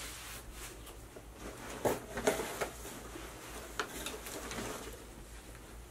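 Light handling noises as clothing is moved and picked up: soft rustling with a few short knocks, the clearest about two seconds in and again near four seconds.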